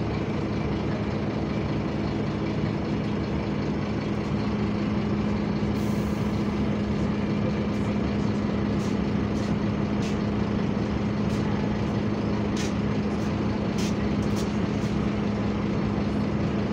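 Scania bus's engine cooling fan running with a steady drone while the bus stands idling, heard from inside the saloon. A few light clicks and knocks come in from about the middle on.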